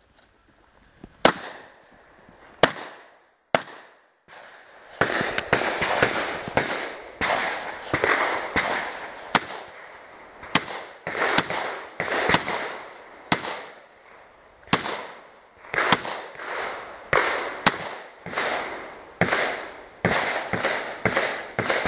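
Shotgun fired in a long, fast string of shots: three spaced shots, then a rapid irregular run of about two dozen more, each shot trailed by a short echo.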